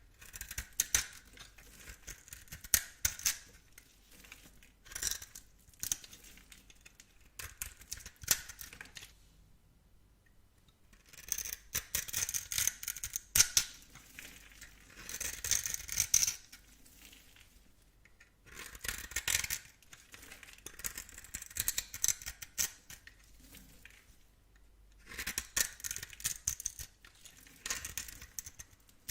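A blade cutting through soap: bursts of crisp crackling and scraping, some brief and some running for several seconds, with short pauses between.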